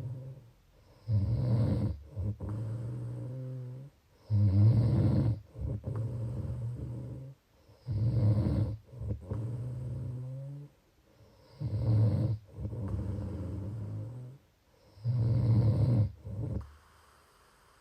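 Rhythmic snoring of a sleeper: five loud snores, about one every three and a half seconds, each followed by a longer, quieter stretch of breathing.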